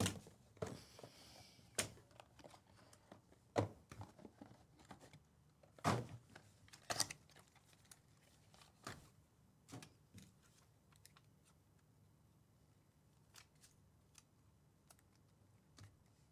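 A cardboard trading-card hobby box being opened by hand: faint clicks, taps and scrapes as the lid and inner box are handled, with a brief hiss about a second in. After about ten seconds only a few soft ticks as the cards are taken out.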